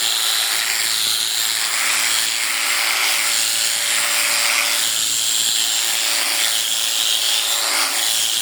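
Electric sheep shears running steadily, a continuous high buzz of the cutting handpiece.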